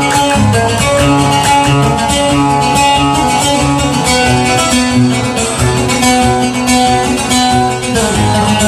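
Instrumental break in a Yemeni song: a plucked-string melody over a bass line and percussion, with no singing.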